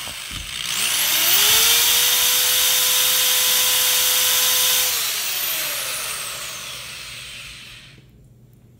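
A small electric motor spins up with a rising whine, runs at a steady pitch with a high hiss for about three seconds, then winds down with a falling whine and fades out.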